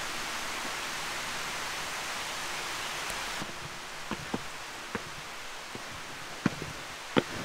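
A steady rushing hiss that cuts off about three and a half seconds in. After it, footsteps on stone paving: a handful of sharp, irregular knocks, the loudest near the end.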